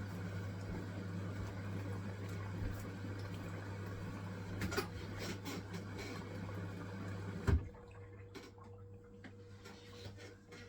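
Hisense washing machine running on its wool cycle: a steady hum with water rushing, until a sharp click about three-quarters of the way through. After the click the rushing stops and only a quieter hum remains.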